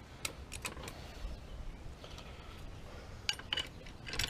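A few light, scattered clicks and knocks of a jack being set in place under the A-arm, over a faint low rumble.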